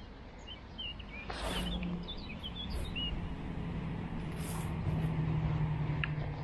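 Small birds chirping in quick, short calls during the first three seconds, over a steady low drone of a vehicle engine that swells toward the middle, with two brief rushes of hiss.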